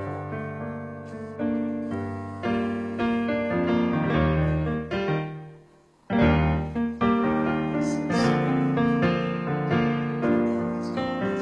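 Piano music. It fades away about halfway through, then starts again suddenly at full level.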